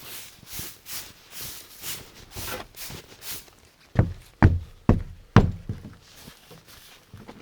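Footsteps crunching through snow, about two steps a second, then four heavy thuds about half a second apart, followed by quieter scuffing.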